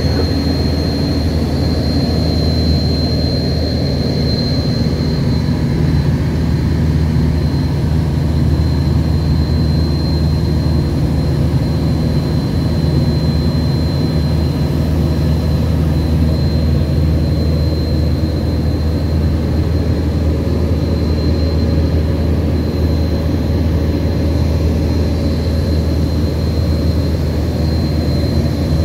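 Single-engine propeller light aircraft in flight, heard from inside the cockpit: the engine and propeller run steadily as a constant low drone, with a thin steady whine high above it.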